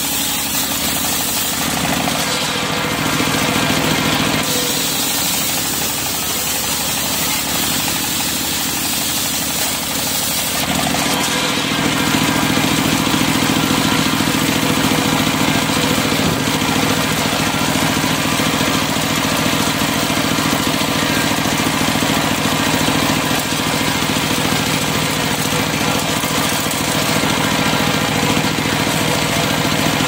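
Large engine-driven circular sawmill blade ripping teak into boards, with the machine's steady drone underneath. The sound grows fuller and a little louder about a third of the way through.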